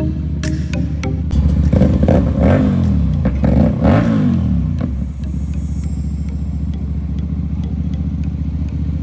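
Motorcycle engine running on the road, its revs rising and falling twice, about two and four seconds in, then settling to a steady drone.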